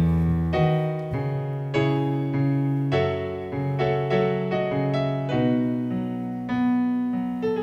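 Yamaha Motif ES8 keyboard playing a piano sound solo at the start of a metal song: a run of chords, a new chord struck about every half second to second, each ringing and fading.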